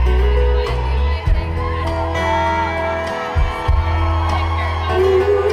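Live country band music heard from the audience, with deep bass notes changing every second or two under sustained guitar notes.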